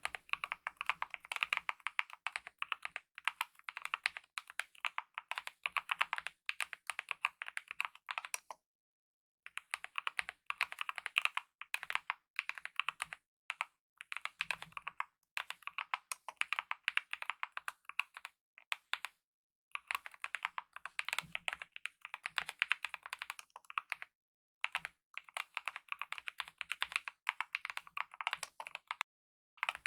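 Mechanical keyboard with lubed optical red linear switches and DSA-profile keycaps being typed on quickly in steady runs of key presses, with short pauses about 9, 19, 24 and 29 seconds in.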